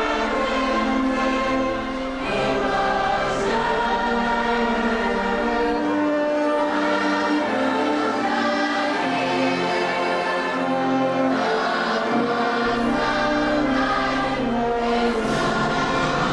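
A choir singing in several parts, holding long notes.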